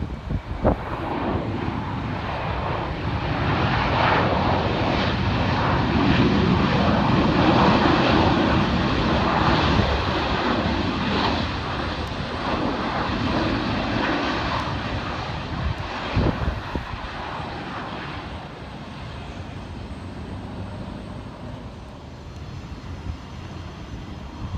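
Jet engines of a Boeing 737 running on the runway: a steady rushing drone that swells over the first several seconds, peaks a few seconds in, then slowly fades away.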